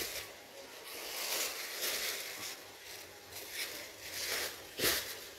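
Thin plastic bag rustling and crinkling in repeated swishes as it is handled, with one sharper crackle near the end.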